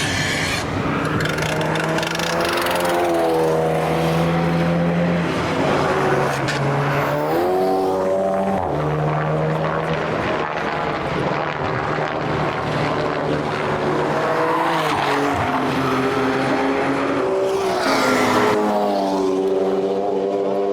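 Several racing cars pass one after another, their engines revving up and dropping back in pitch as they accelerate and lift through the bends.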